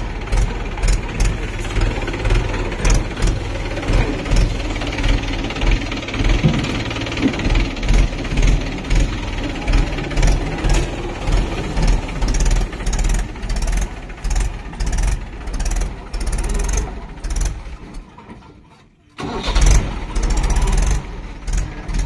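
Mahindra 475 DI tractor's diesel engine running with a pulsing beat. Near the end the sound fades almost to nothing, then the engine is suddenly back running at full level.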